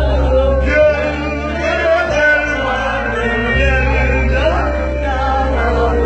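Live band music in a Middle Eastern style: a wavering melody over long held bass notes.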